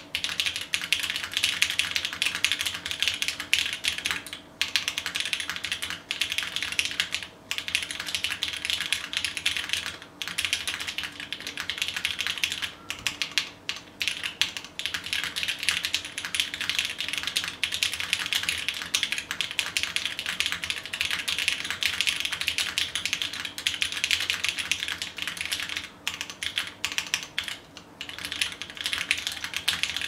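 Fast, continuous typing on a TGR Jane V2 ME custom mechanical keyboard: O-ring mounted, polycarbonate plate, lubed and filmed polished Cherry MX Brown tactile switches (an MX Black on the spacebar), and GMK doubleshot ABS keycaps. The keystroke clacks come in a dense stream with a few short pauses.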